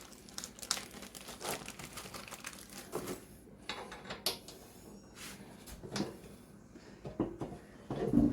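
Hands working small bolts and steel bumper parts: irregular clicks, scrapes and rustling, with a louder knock near the end.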